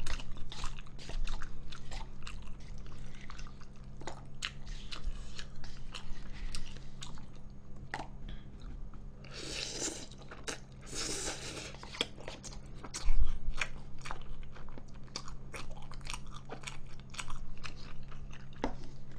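Close-miked eating of instant jjajang noodles: a run of wet chewing and mouth clicks, with two longer slurps of noodles about ten and eleven seconds in. A single loud low thump about halfway through is the loudest sound, over a steady low electrical hum.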